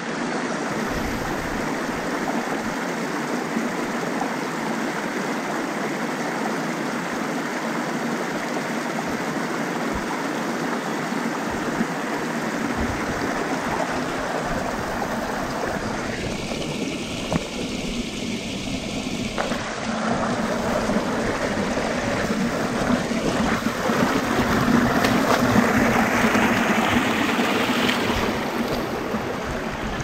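Creek water running steadily, a constant rush that grows louder from about two-thirds of the way through.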